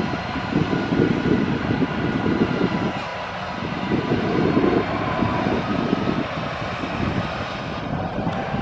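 Arriving jet airliner passing over: a steady engine rumble with a faint whine above it that shifts slightly in pitch midway.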